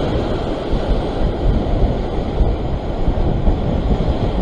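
Sea surf surging and breaking over shoreline rocks, with wind blowing on the microphone, a loud, uneven low rush.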